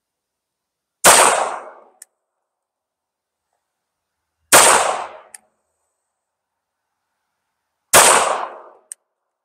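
Grand Power P380 pistol firing .380 ACP, three single shots about three and a half seconds apart, each shot trailing off over most of a second and followed about a second later by a short faint tick.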